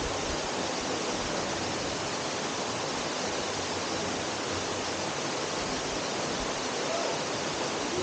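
Waterfall pouring into a pool, a steady, even rushing of falling water heard from inside a rock cavern.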